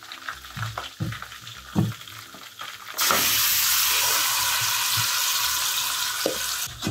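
Marinated sliced beef tipped from a bowl into hot oil in a pot: a spoon scrapes and knocks against the bowl, then about three seconds in a loud, steady sizzle starts as the meat hits the oil.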